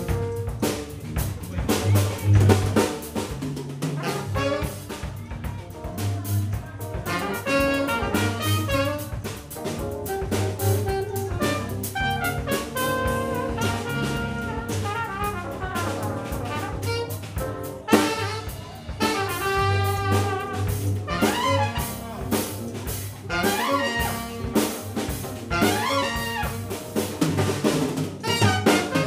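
Live jazz band: trumpet and tenor saxophone playing together over a drum kit, electric bass guitar and keyboard.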